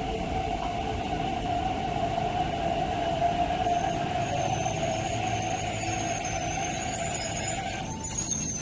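MTR East Rail Line nine-car electric train moving along the platform, its motors giving a steady whine that cuts off sharply about eight seconds in. A high, wavering wheel squeal joins from about four seconds in.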